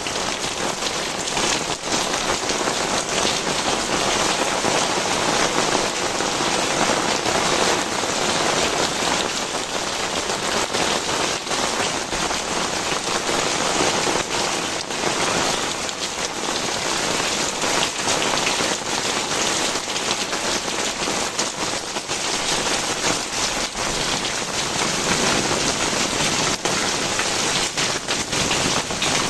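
Heavy tropical rain pouring down steadily, a dense hiss of rain with many close drops spattering on the ground.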